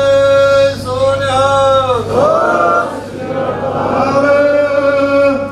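A man chanting in long, drawn-out held notes, four phrases in all, over a low steady hum.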